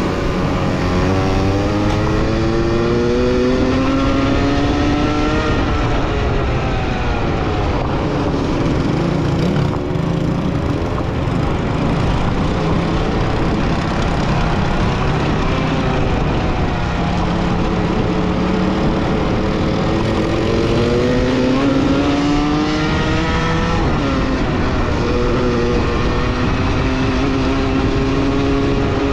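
A vehicle engine under load, its pitch climbing steadily for several seconds and then dropping sharply, like a gear change, about six seconds in and again near the end, with steadier running in between.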